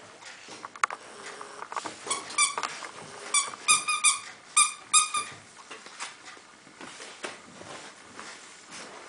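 Squeaky dog toy being squeezed by boxer puppies. It gives short, high squeaks of the same pitch in three quick clusters around the middle, with light clicks and scuffles of puppies on a tile floor around them.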